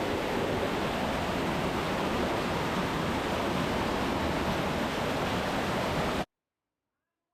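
Steady rush of a cave waterfall pouring down a rappel drop. It cuts off abruptly to dead silence about six seconds in.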